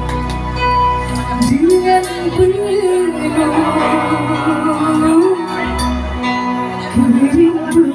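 A woman singing into a microphone over instrumental accompaniment with steady bass notes; her voice comes in about a second and a half in and holds long, wavering notes.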